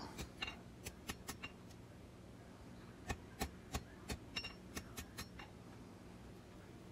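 Light metal-on-metal clicks and taps from steel tools and bar stock being handled while a forged knife preform is measured and marked. There are two bursts of quick, faint ticks, some with a brief high ring.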